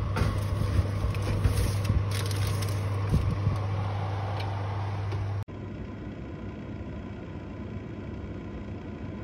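Fan-forced oven running with a steady low hum, with a few light clicks and scrapes of a baking tin being handled on the wire oven rack. About halfway through, the hum drops to a softer, steady whir.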